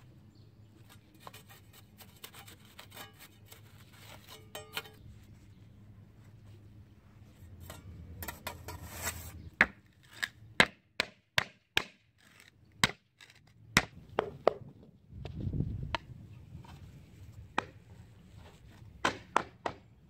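Rubber mallet striking a wooden block laid on a concrete paver slab, a run of sharp knocks that come quickly at first and then more spaced, bedding the slab down into the sand to level it. Before the knocks, softer scraping of hands working the sand bed.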